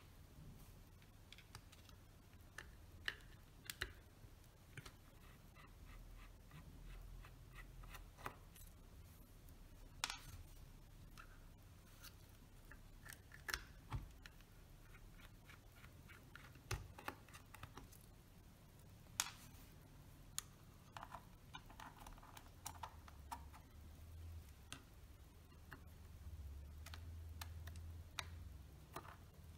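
Faint, irregular small clicks and scrapes of a precision screwdriver taking out the screws that hold the shutter to a Zeiss Ikon Contaflex IV's metal body, with the camera being handled and turned.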